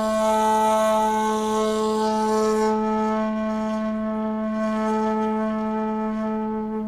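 A 2.4-shaku shakuhachi bamboo flute by Ichijo Kobayashi holding one long low note. The note is breathy for the first few seconds, then clearer, and slowly fades near the end.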